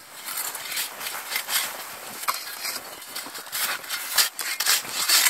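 Footsteps crunching on snow, an irregular run of short crunching and rustling strokes.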